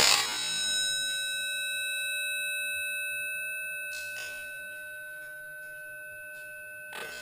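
Something struck with a sharp hit, then ringing on like a bell, with several steady tones slowly fading away; a second, lighter knock comes near the end.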